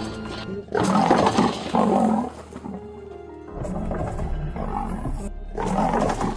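Adult male lion roaring: several loud, deep calls in a row, each about a second long, with background music underneath.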